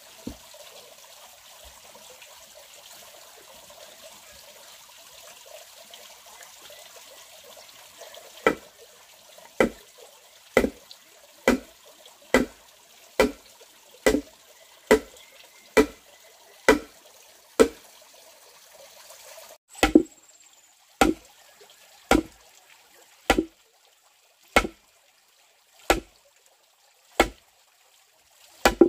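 Steady blows on wood, about one a second, each sharp with a short ring, starting about eight seconds in. Before them there is only a faint rush like running water.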